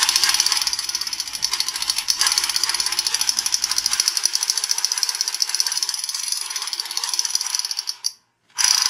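Plastic toy sniper rifle making its fast, even clicking gunfire sound, held for about eight seconds, then stopping and giving one short burst again near the end.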